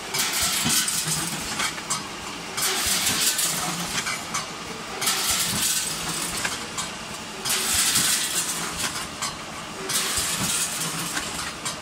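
Vertical form-fill-seal packing machine running while it bags round wire clips. Its hiss and low hum swell and fade in a repeating cycle of about two to three seconds.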